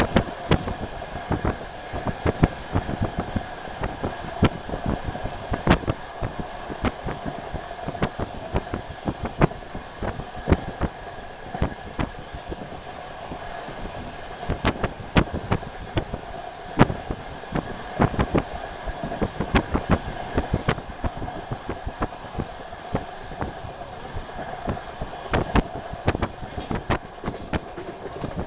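DR1AMv diesel multiple unit running at speed, heard from inside the carriage: a steady drone of the running gear and engine with frequent sharp clicks and knocks from the wheels on the track and the rattling car body.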